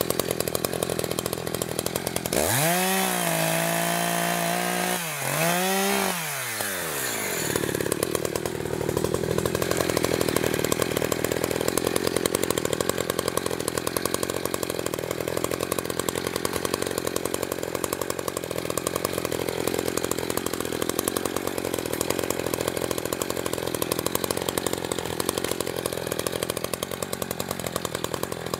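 New ECHO CS-590 Timber Wolf chainsaw's two-stroke engine, in its break-in period. It runs at low speed, is revved to full throttle about two seconds in, dips, revs up once more and falls back by about seven seconds. It then runs on at lower speed with a rough, rapid buzz.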